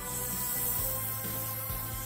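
Background music with steady held notes and a regular low beat.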